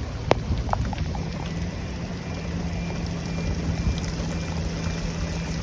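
Strong wind buffeting the microphone in a gusty low rumble, with a sharp click just after the start and a steady low hum coming in about a second in.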